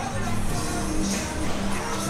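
Music playing with sustained steady notes over a general background hum.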